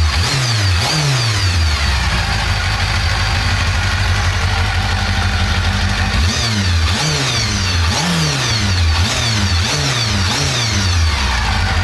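Motorcycle engine running and being revved in quick throttle blips, each rev rising and then falling back in pitch. There are a few blips near the start, steadier running in between, and a rapid series of them through the second half.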